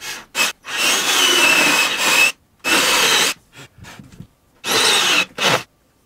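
Ryobi cordless drill boring down through a timber beam under the ceiling plasterboard. It runs in several separate bursts, the longest about a second and a half, with a steady whine over the drilling noise.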